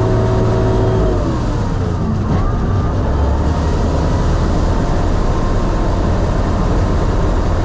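Sherp amphibious ATV's engine running while the vehicle crosses open water. Its note drops about a second in, then settles into a steady low rumble with water churning and splashing against the vehicle.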